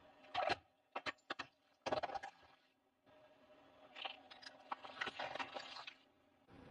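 A car tyre crushing a rainbow-coloured jelly disc topped with paper cards, making crunching and crackling sounds. There are short crunches about half a second, one second and two seconds in, then a longer stretch of crackling from about four to six seconds.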